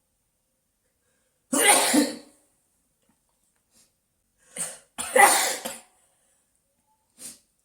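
A person sneezing, set off by coconut coir fibre tickling the inside of the nose. A loud sneeze comes about a second and a half in, two more bursts follow around five seconds in, and a faint short one comes near the end.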